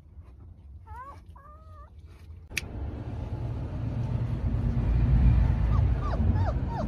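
German Shepherd puppies whimpering: a couple of short whines about a second in. After a click at about two and a half seconds, a loud steady rushing noise with a low rumble takes over, with short high falling squeaks from the puppies near the end.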